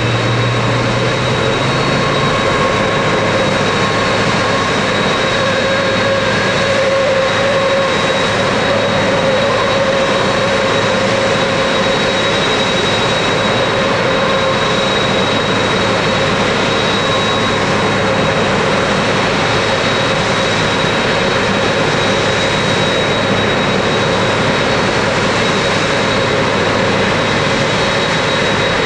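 Jet engines of a Boeing 767-300ER running steadily on the ground: a loud even rush with a high, steady whine on top.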